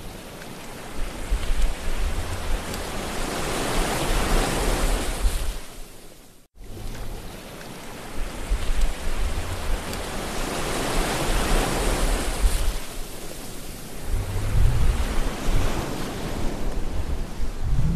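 Seawater rushing and splashing over the hull-mounted Intova Sport HD camera of a one-man outrigger canoe as the bow drives through the waves, rising and falling in long surges, with wind rumbling on the microphone. The sound cuts out abruptly for an instant about six and a half seconds in.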